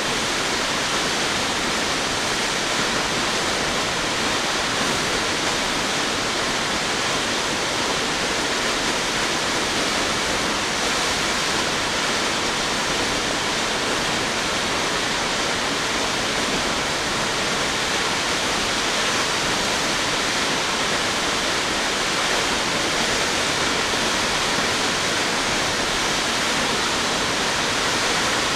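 A 177-foot waterfall plunging into its pool, a steady, even rush of falling water.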